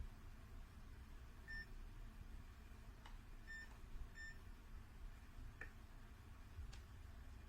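Digital clamp meter beeping: three short high beeps, one about a second and a half in and two close together near the middle. A couple of faint clicks and a low hum sit underneath.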